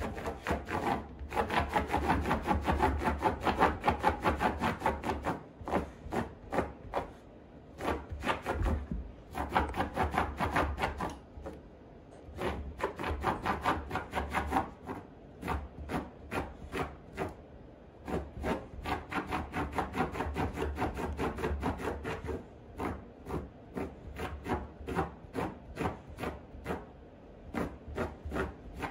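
A dog digging at a woven rug with her front paws: fast scratching strokes in several runs, broken by short pauses about six, twelve and twenty-two seconds in.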